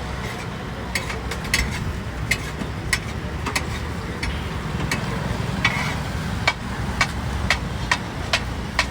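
Metal spatula clinking and scraping on a large iron tawa while tawa pulao is stirred and fried, sharp clinks about once or twice a second over a steady low rumble.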